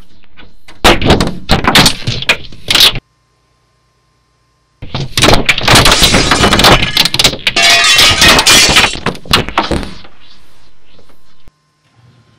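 Two loud runs of crashing and clattering, the first about two seconds long and the second, after a short silence, about five seconds long, over a steady low hum that cuts off near the end.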